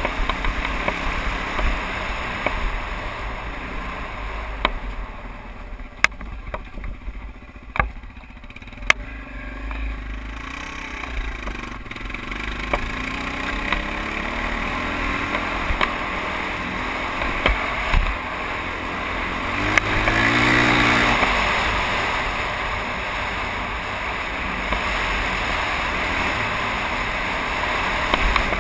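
Trail bike engine running as it is ridden up a dirt track, revving up in places, with a steady rush of wind on the camera microphone and several sharp knocks in the first half as the bike goes over bumps.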